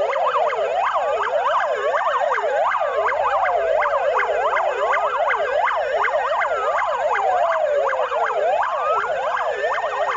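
Many emergency-vehicle sirens of a line of fire and rescue trucks sounding together. Fast yelping sirens, about three sweeps a second, overlap with slower wailing sirens that climb and fall over several seconds.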